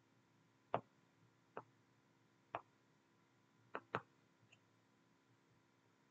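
Half a dozen short, sharp clicks at uneven intervals, two of them in quick succession about four seconds in, over a faint steady electrical hum.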